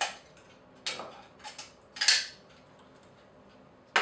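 Cameras being handled and set down on a hard surface: a few sharp knocks and clatters, the loudest about two seconds in.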